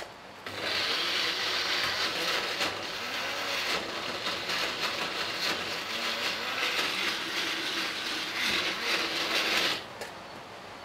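Small personal mill-blender running for about nine seconds, chopping a chunky mix of bread, capers, olives, onion and anchovy in olive oil and vinegar into a sauce. The motor's pitch wavers as the load shifts, and it stops near the end.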